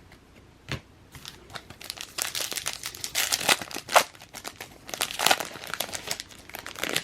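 Crinkling and tearing of a foil trading-card pack wrapper being torn open and handled, in irregular crackly bursts that are loudest about four seconds in.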